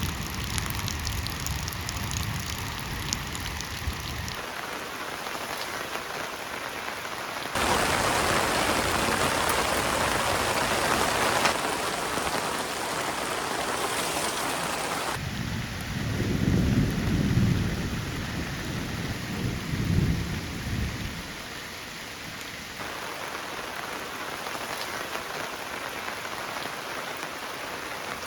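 Heavy rain pouring down steadily. Low rolls of thunder rumble in just past the middle.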